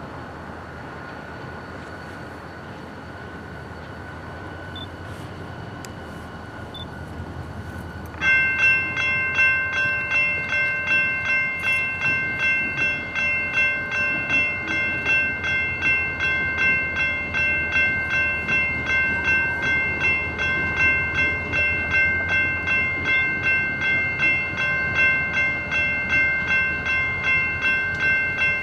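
Railroad grade-crossing bell that starts suddenly about eight seconds in and keeps striking evenly, a little over two strokes a second, with a steady metallic ring. It signals that the crossing warning has activated for an approaching train.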